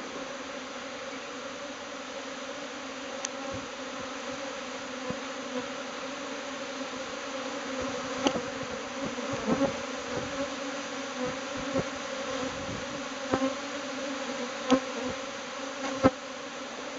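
Japanese honeybee swarm taking flight as the swarm cluster breaks up: a steady dense hum of many bees in the air, with brief louder buzzes of single bees passing close, more of them in the second half.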